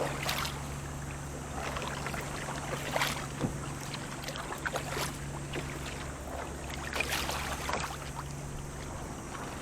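Canadian canoe being paddled on sea water, a paddle splash about every two seconds over a steady low hum.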